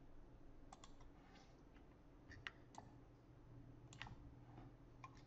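Faint computer mouse clicks, scattered singly and in a few quick pairs, over a low, steady room hum.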